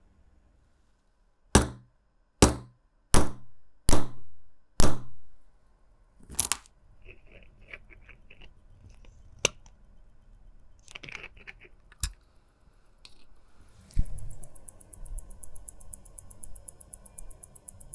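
Clicks and knocks of a watchmaker's bench tools and equipment: five loud, sharp knocks about a second apart, then lighter scattered clicks and taps.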